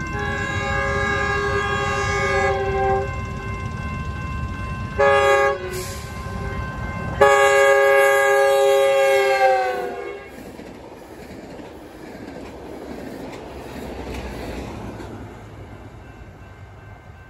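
Horn of a Metrolink commuter train led by a Hyundai Rotem cab car, sounding for a grade crossing: a long blast, a short one, then a last long blast that sags in pitch as it ends. The blasts are followed by the steady noise of the train on the rails.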